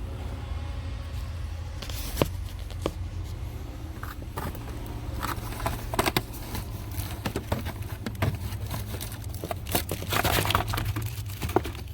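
A dirty pleated cabin air filter being pulled out of its plastic housing by hand: irregular crinkling, rustling and plastic clicks, busiest around the middle and near the end, over a steady low hum.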